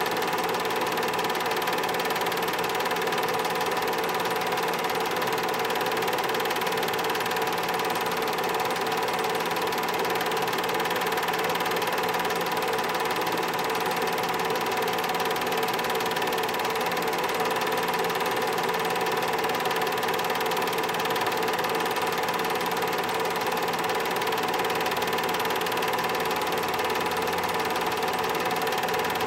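A home-movie film projector running with a steady mechanical whir and hum from its motor and film transport.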